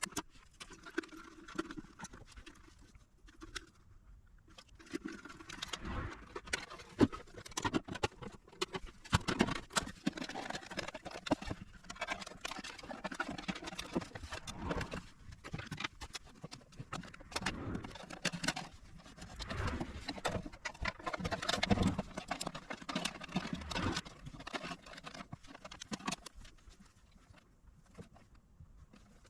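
Irregular small clicks, taps and rustling of hands handling parts and tools during an electronics repair, busiest about two-thirds of the way through.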